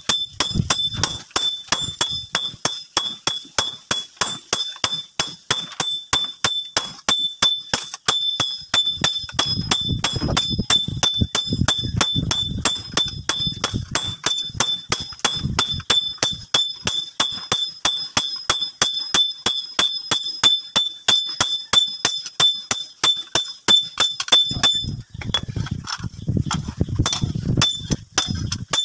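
Hammer blows forging a red-hot leaf-spring steel cleaver blank on a steel anvil block, about three to four strikes a second, each with a high metallic ring. The hammering stops just before the end.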